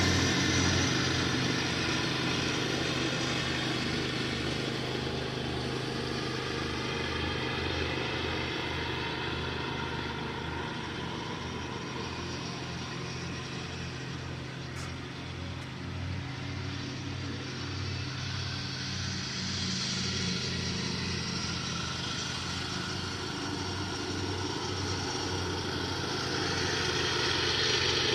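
Lawn mower engine running steadily during mowing, its loudness slowly fading and swelling again as it moves farther off and back.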